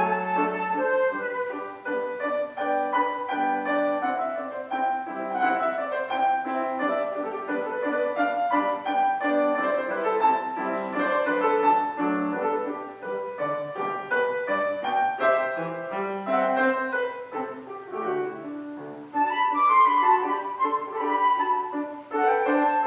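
Classical concerto music: piano accompaniment with a solo woodwind instrument, the solo line coming forward strongly near the end.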